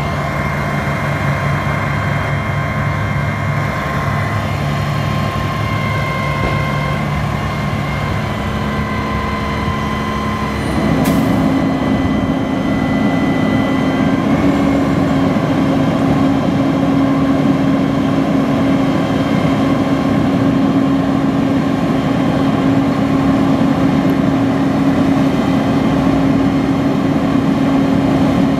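Diesel engine of a 2007 Peterbilt 340 crane truck running steadily. About a third of the way in it steps up to a higher, louder speed and holds there.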